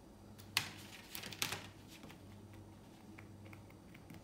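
A cotton swab dabbing acrylic paint, heard as a few light taps and clicks, two sharper ones in the first second and a half, over a low steady hum.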